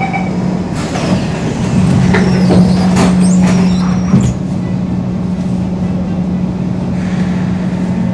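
Singapore MRT train's door-closing chime finishing, then the doors sliding shut with a louder stretch of rumbling and knocks that ends in a thud about four seconds in, over the train's steady electrical hum.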